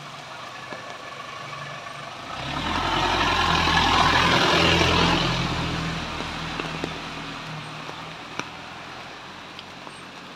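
A vehicle passing on a wet road: engine hum and the swish of tyres on the wet surface swell up about two seconds in, are loudest around four to five seconds, then fade away by about eight seconds.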